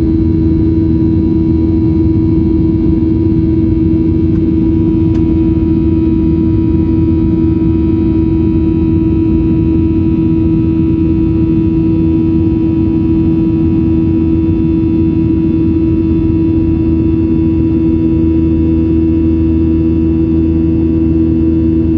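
Boeing 737-800 in flight heard from inside the cabin: its CFM56-7B turbofan engines and cabin air make a loud, steady drone with a low rumble and a strong, steady hum.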